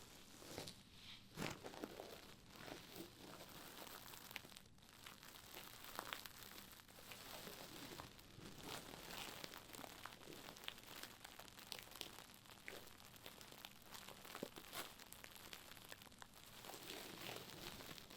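Quiet ASMR trigger sound: a scouring pad rubbed and scratched close to the microphone, a continuous run of irregular scratchy, crinkly strokes.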